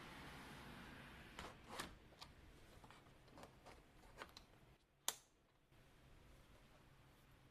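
Faint steady hiss of sea and light rain, then a run of light clicks and knocks that ends in one sharp click about five seconds in.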